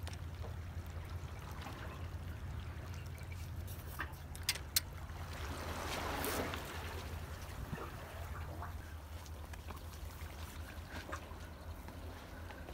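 Seawater lapping and trickling among concrete tetrapod blocks, over a steady low rumble. Two sharp clicks come about four and a half seconds in, and a louder wash of water swells up about six seconds in.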